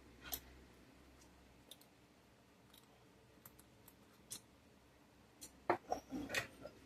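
Faint, scattered small clicks and taps of plastic model-locomotive parts and small tools being handled on a workbench, a few spaced out at first and a quicker cluster near the end.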